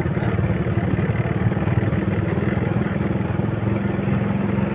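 Small single-cylinder Honda motorcycle engine running at a low, steady throttle while the bike rolls slowly along a dirt road, a fast, even putter.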